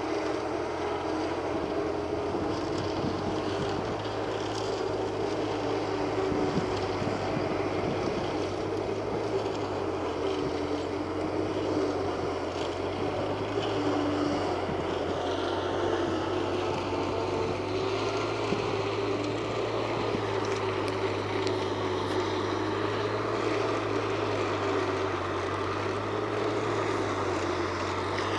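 Forage harvester chopping maize for silage, heard as a steady engine drone with a constant low hum.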